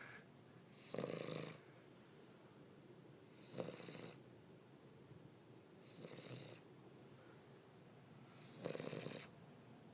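King Charles spaniel snoring: four short snores, about one every two and a half seconds, with quiet breathing between them.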